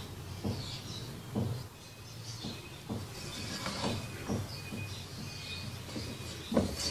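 Black plastic slotted spatula stirring and fluffing freshly cooked pulao rice in a non-stick pot, giving soft scrapes and knocks against the pan about once a second.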